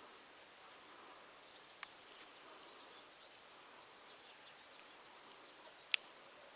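Faint distant birdsong: scattered high chirps over a steady background hiss. Two short sharp sounds stand out, a small one about two seconds in and a louder one near the end.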